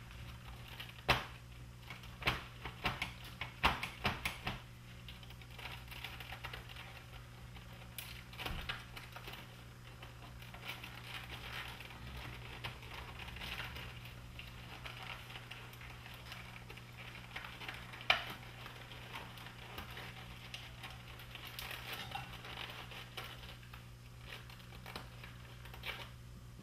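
Small plastic clicks and snaps with soft rustling and crackling as hands pull at the wiring harness and wire clips inside a Technics RS-M275 cassette deck: a quick run of clicks in the first few seconds and one sharper click later on. A steady low hum sits underneath.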